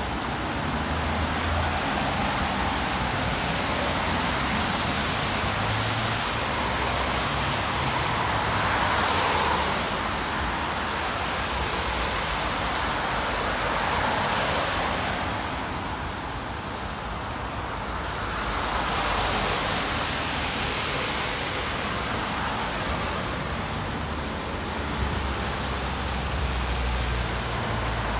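Road traffic passing: a steady hiss of tyres on the road, swelling and fading as vehicles go by, with a low engine rumble at the start and again near the end.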